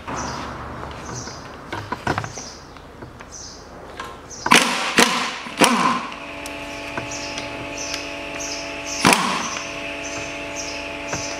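Several sharp metallic clanks and scrapes of a wrench and long extension being fitted to the front-cover bolts of a stripped Mitsubishi 4B10 engine block, the loudest a cluster about four and a half to six seconds in and another about nine seconds in. A faint steady hum and a faint high chirp repeating about every two-thirds of a second run underneath.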